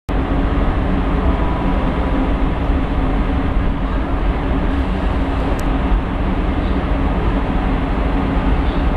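A DB Class 103 electric locomotive standing with its pantograph raised and its cooling blowers running: a steady, loud drone with a low hum.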